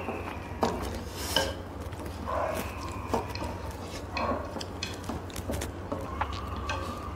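Chopsticks clicking and scraping against a metal pot and small bowls as instant noodles are lifted out and eaten, with scattered eating noises over a low steady hum.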